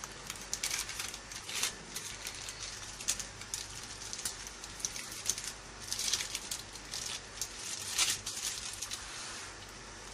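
Butter paper crinkling and rustling in irregular crackles as a filled shawarma pita is folded and wrapped in it.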